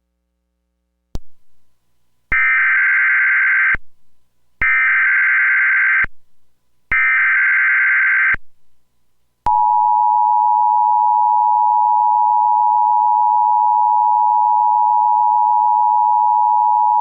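Emergency Alert System SAME header for a severe thunderstorm watch: after a short click, three bursts of warbling digital data tones sound, each about a second and a half long. About nine and a half seconds in, the steady two-tone EAS attention signal starts and holds.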